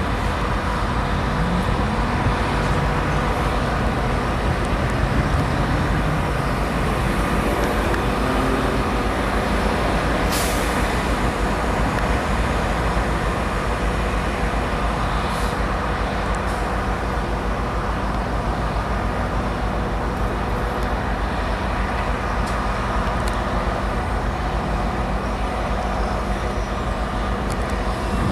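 Tri-Rail diesel locomotives idling steadily at the platform. A short hiss of released air comes about ten seconds in, and a fainter one a few seconds later.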